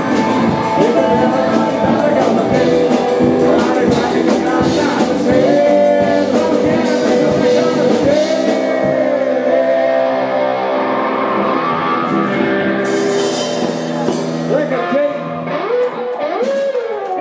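Live rock band playing: electric guitars, drums and sung vocals, with a cymbal wash about two-thirds of the way through. It grows somewhat quieter in the last couple of seconds.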